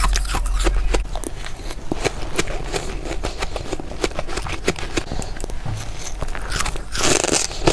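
Freezer frost being bitten and chewed close to the microphone: a dense run of sharp, crackling crunches, with a louder bite shortly before the end.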